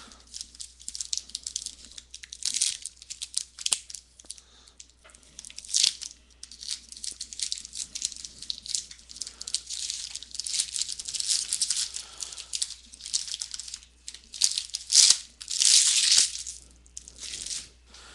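Foil trading-card pack crinkling in irregular crackling bursts as it is handled and torn open, loudest near the end.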